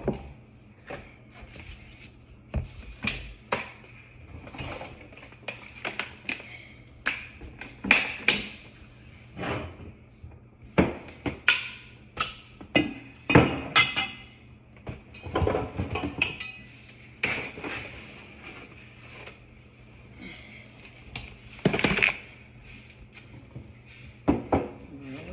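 Household items knocking, clunking and rattling as they are moved around and taken out of a kitchen sink cabinet, in irregular bursts, with a few louder knocks.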